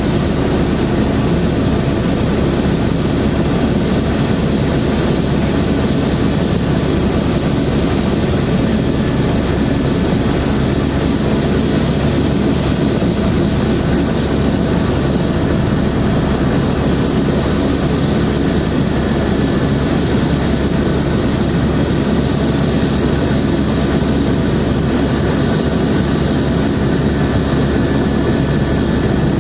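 Helicopter in flight: a loud, steady rumble of engine and rotor noise with a faint high whine over it, unchanging throughout.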